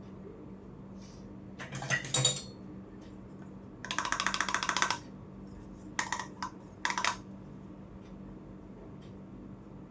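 Small hard miniature toy kitchen pieces being handled, clinking and tapping. There is a short clatter about two seconds in, a fast run of ticks for about a second near the middle, then two short bursts of clicks.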